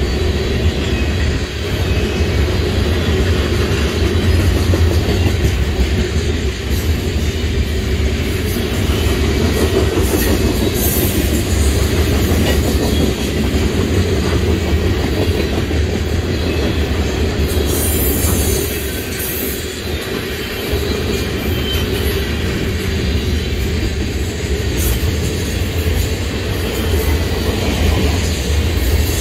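Freight train of loaded tank cars rolling past: a steady rumble of steel wheels on rail with wheels clicking over the rail joints. A brief high hiss comes twice, about a third and two thirds of the way through.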